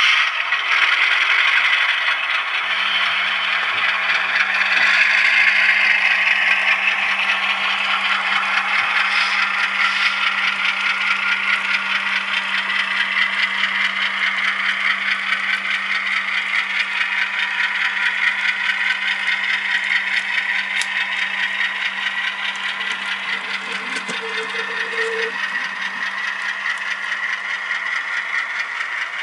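Model train rolling along the layout's track: a continuous rapid rattle of the freight cars' small wheels over rail joints and turnouts, with a steady low hum from about three seconds in. The sound slowly fades.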